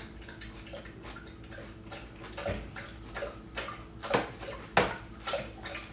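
Irregular light clicks and taps of a metal fork against a plastic food container while eating, a few of them from about two seconds in.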